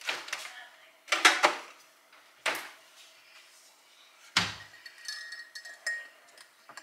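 Kitchen clatter: several sharp knocks, then a heavier thump about four seconds in. After it, a metal spoon clinks and rings against a ceramic mug as it stirs.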